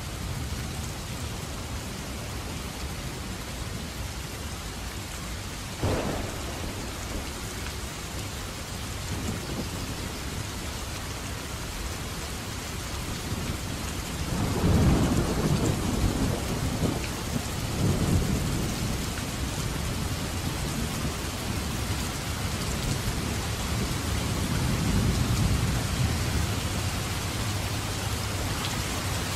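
Heavy rain falling steadily in a thunderstorm. There is a sudden crack about six seconds in, then a long low rumble of thunder from about halfway through, which swells once more near the end.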